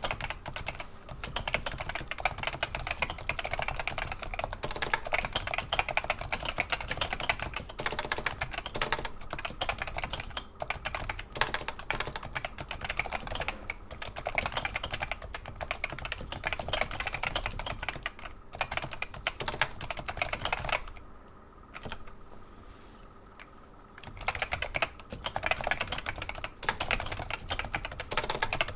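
Continuous fast typing on a Realforce RGB keyboard with Topre switches and thick 1.5 mm PBT keycaps, a dense run of keystrokes. Typing pauses for about three seconds roughly three-quarters of the way through, then resumes.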